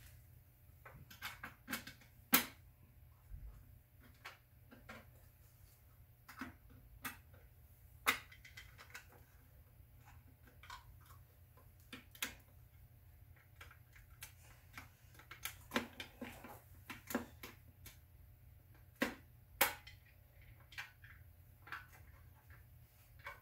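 Scattered light clicks and taps of a screwdriver and fingers on a clear plastic distributor cap as its hold-down screws are tightened.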